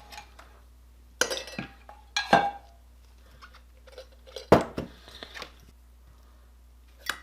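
A few sharp clinks of small die-cast metal parts and containers being handled, as the parts are readied for a hot caustic soda paint-stripping bath. The clinks fall at about one, two, four and a half and seven seconds in, the one at four and a half the loudest.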